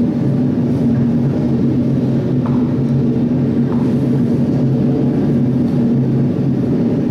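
Loud, steady low rumble with a droning hum, a recorded sound cue played back.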